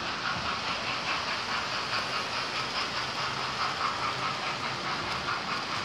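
Several model trains running on the layout: the steady whirr of their small electric motors with a light, even clicking of wheels over the rail joints.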